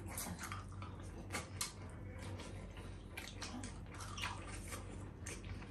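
Close-miked eating sounds: wet slurping and chewing of miswa noodle soup and bites into breaded fried chicken, made up of many small sharp clicks and crunches. A steady low hum runs underneath.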